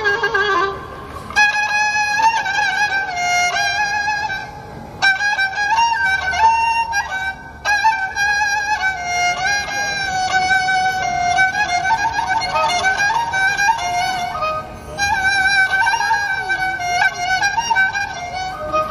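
Azerbaijani kamancha (spike fiddle) played solo: a bowed melody with vibrato and ornamented turns, in phrases broken by short pauses.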